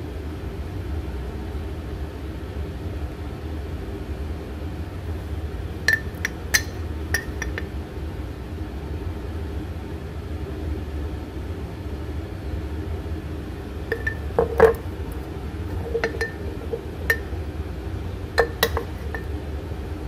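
Glass jar clinking sharply in a few scattered clusters as it is handled, over a steady low hum.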